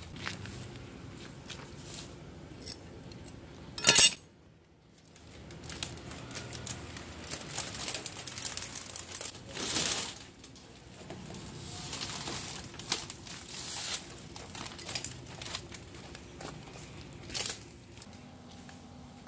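Dry grass, leaves and loose debris rustling and crunching as they are pulled up and shifted by hand, with scattered knocks and clatter of loose objects being moved. One loud clatter about four seconds in.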